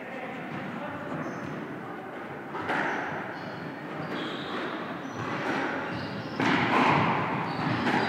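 Several squash ball thuds echoing around the squash court, the loudest about six and a half seconds in.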